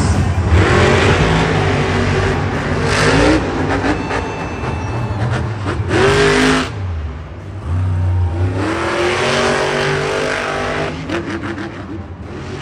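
Monster truck supercharged V8 engines revving hard, in several separate rising revs with a constant loud roar between them, the longest rev coming in the second half.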